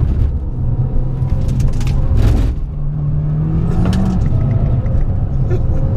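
Abarth 695 Biposto's turbocharged 1.4-litre four-cylinder engine and exhaust under hard acceleration, heard from inside the cabin. The engine note climbs from about three seconds in and drops sharply just after four seconds at a quick upshift through the dog ring gearbox.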